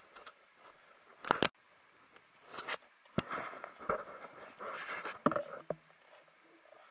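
Boots crunching in packed snow and ski poles planting as a climber walks. The crunches are irregular, with a sharp double one about a second in and a cluster of steps near the middle.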